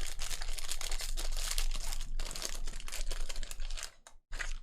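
Rustling and crinkling as packs and trading cards are handled during a 2020 Bowman Draft box break. It is a dense, scratchy crackle that breaks off about four seconds in, with one short burst after.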